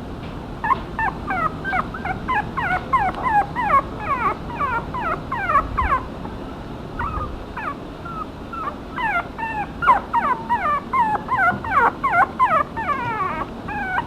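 Puppy yipping and whimpering in quick, high, falling squeals, several a second, with a short break around the middle.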